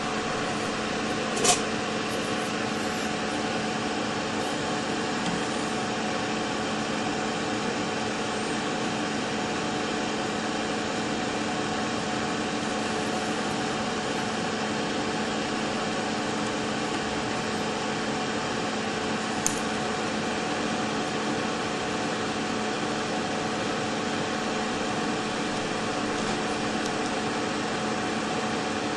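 A steady mechanical hum with a few constant tones, like a small fan or motor running. Two brief sharp clicks, one about a second and a half in and another about twenty seconds in.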